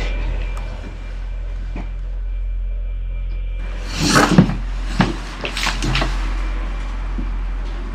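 A steady low drone with a rustle and knocks about four seconds in, then a sharp click a second later, as something is handled at a table.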